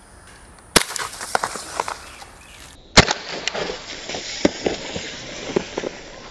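Two sharp shots from an Umarex Beretta M9A3 blowback CO2 BB pistol, about two seconds apart. Each shot is followed by a scatter of lighter clicks and ticks.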